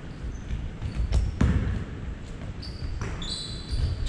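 Basketball bouncing on a hardwood gym floor, a few separate thuds, with sneaker squeaks about three seconds in.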